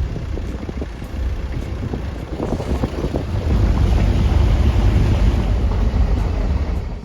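Wind buffeting the microphone: a loud, uneven, low rumble that swells in the second half and cuts off suddenly at the end.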